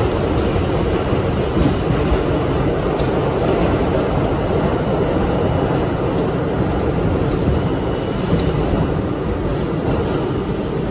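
Subway train running through a tunnel, heard from inside the car: a steady, loud rumble of wheels on rails with a few faint clicks.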